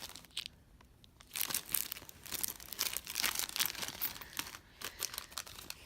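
Plastic blind-bag packaging crinkling and rustling as it is handled and torn open, starting about a second and a half in and going on as a dense, irregular crackle.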